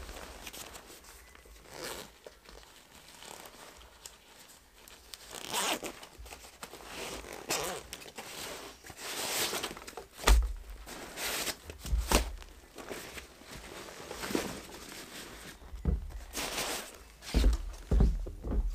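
A hiking backpack being unpacked by hand: its zips pulled open, with the rustle and crinkle of a nylon stuff sack holding sleeping gear. Several dull thumps come in the second half as gear is handled and set down.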